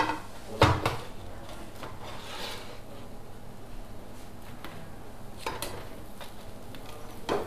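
Plastic spatula scraping and knocking against a nonstick electric griddle as large pancakes are lifted and flipped over, with a sharp knock about a second in and a few lighter ones later.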